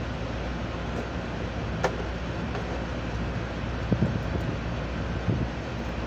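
Steady low machinery hum and wind noise on the microphone, with a sharp click about two seconds in and a few light knocks around four and five seconds in.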